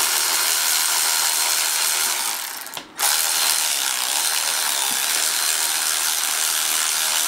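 Cordless electric ratchet running steadily as it spins out a long alternator mounting bolt on a GM 3800 V6, with a brief stop nearly three seconds in.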